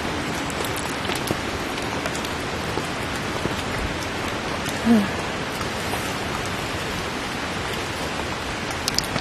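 Steady rain falling, an even hiss with scattered drips. About halfway through, a brief pitched sound stands out over the rain for a moment.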